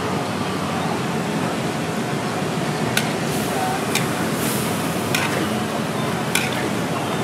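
Wok frying: a steady sizzle, with a metal spatula striking the wok four times in the second half.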